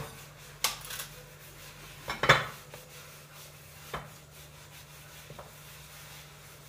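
Crockery clattering on a kitchen counter as a bowl is handled over a plate to turn a milk cake out onto it: three short knocks, the loudest about two seconds in, then a faint tap.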